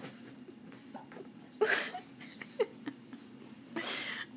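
A baby hiccuping: two loud breathy gasps about two seconds apart, with short squeaky little vocal blips between them.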